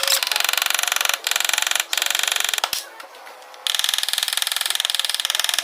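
A mechanical tool or mechanism making a fast, even clicking buzz in bursts. It breaks off briefly a little over a second in and again near two seconds, pauses for longer around three seconds, then runs on steadily.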